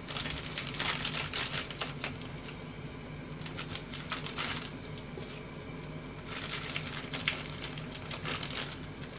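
A bag crinkling and rustling in several bursts of crisp crackles as spring rolls are put into it, over a steady low hum.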